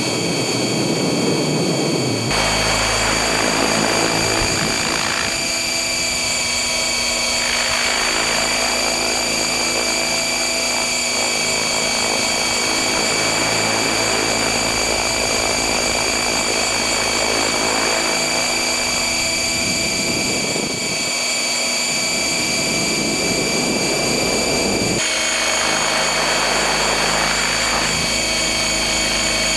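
Electric radio-controlled helicopter (a stretched Align T-Rex 600 on 12S batteries) heard from a camera mounted beneath it: a steady high-pitched motor and gear whine over the rushing rotor wash, which swells and fades every few seconds.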